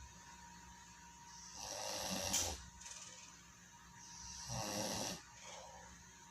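Snoring in slow, even breaths: two snores, each building over about a second and stopping sharply, with quieter breathing between them.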